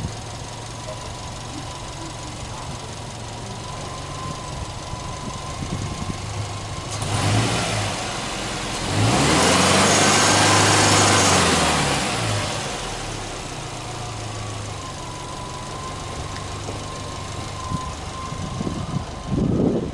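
Subaru Impreza WRX STI's turbocharged flat-four (boxer) engine idling steadily, revved briefly about seven seconds in, then revved up and held for about three seconds before the pitch falls back to idle. Near the end there is a louder rough noise.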